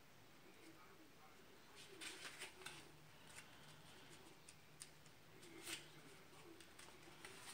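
Faint rustling and crisp flicks of paper pages being turned in a small booklet, a cluster of them about two seconds in and a sharper single flick near six seconds; otherwise near silence.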